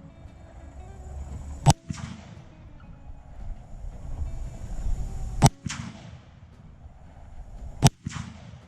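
M1 Garand rifle firing .30-06 rounds, three single shots a few seconds apart, each followed a moment later by a short echo.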